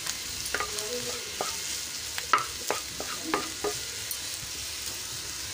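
Chicken, cabbage and onion filling sizzling as it is roasted over a high flame in a nonstick kadai, stirred with a spatula that scrapes and knocks against the pan about eight times.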